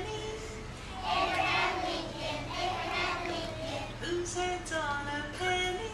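A group of young children singing together, in turn with a single woman's voice singing solo lines, as in a call-and-response song: the children sing for a couple of seconds, then the solo voice sings alone near the end.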